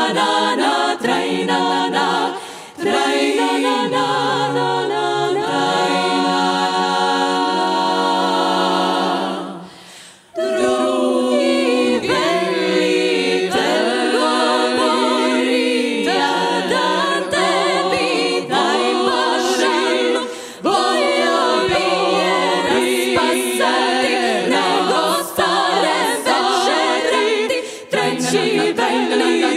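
Female klapa ensemble singing a cappella in close multi-part harmony, with long held chords and a short break about ten seconds in before the voices come back in.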